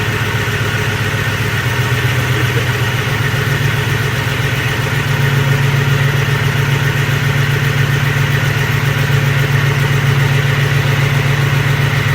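A Ford 4.6-litre two-valve V8 idles steadily while its ignition coils are unplugged one at a time for a misfire test. At this point the coil for cylinder 7 is being pulled. The engine gets a little louder about five seconds in.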